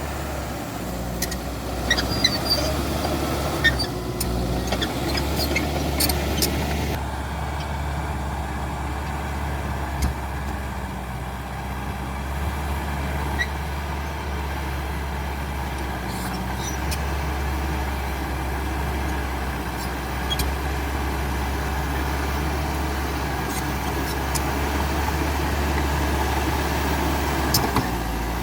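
CAT D5K XL bulldozer's diesel engine running steadily under load with a deep, even drone. Sharp clicks and cracks come through the engine sound in the first seven seconds or so.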